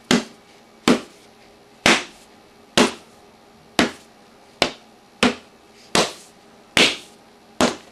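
A fist punching a textbook about ten times, at a little under one blow a second: sharp smacks recorded as punch sound effects.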